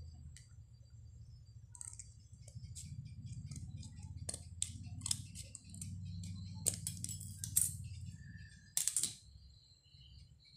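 Scissors snipping through the thin steel of a mosquito-coil stand: a run of irregular small clicks and snips, the loudest in the last third.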